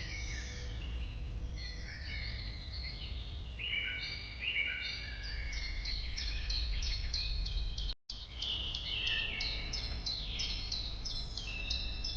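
Several birds singing at once, a dense chorus of overlapping short chirps and whistled notes, over a steady low rumble of outdoor background noise. The sound drops out for an instant about eight seconds in.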